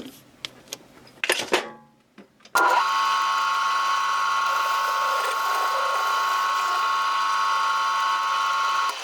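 A few clicks and knocks as the next screwdriver bit is set up, then a small lathe starts abruptly about two and a half seconds in and runs steadily with a high whine while it turns the bit; it stops suddenly near the end.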